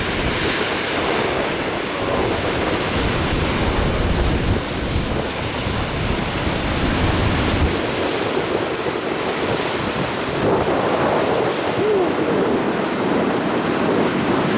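Rough sea: big waves surging and breaking around a boat, with wind buffeting the microphone. The heavy low wind rumble drops away about eight seconds in.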